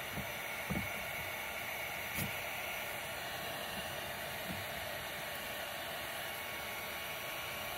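Heat gun blowing a steady hiss of hot air to soften an old PVC pipe stub glued inside a spa manifold fitting, with a couple of faint clicks of pliers on the pipe.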